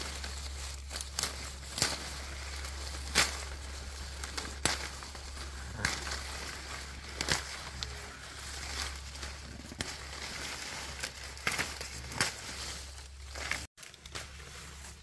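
Leaves and stems rustling and crackling as vegetables are picked and handled by hand, with irregular sharp snaps.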